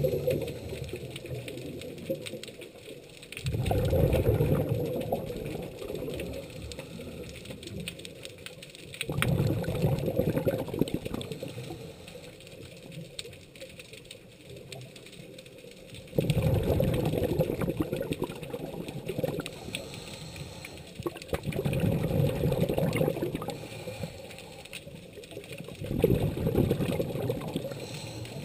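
Scuba diver breathing through a regulator underwater: exhaled bubbles gurgle out in bursts of about two seconds, roughly every five to six seconds, with faint crackling in the quieter stretches between.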